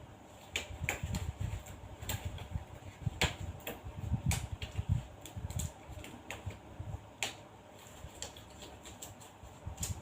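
Irregular clicks and knocks, with low thumps, as medical equipment is handled and set out.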